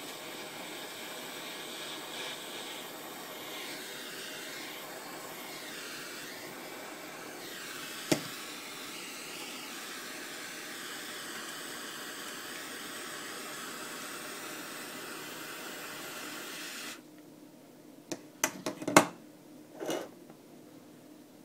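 Butane kitchen blowtorch flame hissing steadily as it caramelises the sugar on a crème brûlée, with one sharp click partway through. The hiss cuts off sharply about four-fifths of the way in, followed by a few knocks and clicks, the loudest near the end.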